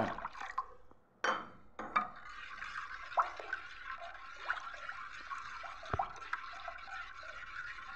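Coconut milk splashes into a brass vessel in the first second. Then a steel spoon stirs the thin liquid mixture of coconut milk and jaggery syrup, which sloshes and splashes steadily, with a few light knocks of the spoon against the vessel.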